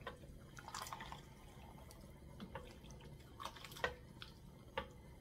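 A wooden spoon stirring chickpeas and vegetables in liquid in a stainless steel stockpot: faint wet sloshing with scattered light knocks of the spoon against the pot, the sharpest a little under four seconds in.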